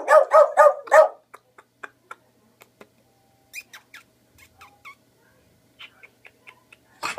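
Boglen Terrier (Beagle–Boston Terrier mix) barking: a quick run of about five high-pitched barks at the start, then only faint small clicks for several seconds, and a new bark starting right at the end.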